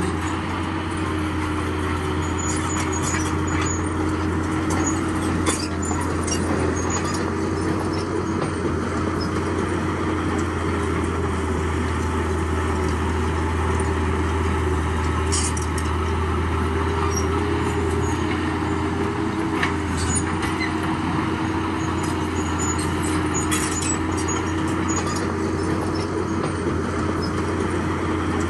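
Heavy diesel engine of a bulldozer running steadily, with light clicks and clinks now and then.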